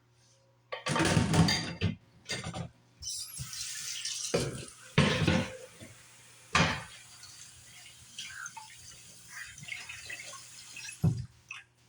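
Kitchen dishes and utensils being handled, clinking and clattering in a run of separate knocks with softer clatter between, with some water-like sound.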